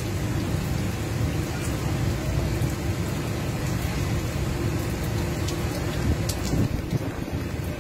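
Heavy rain falling steadily during a thunderstorm, with a constant low rumble underneath and a few faint ticks.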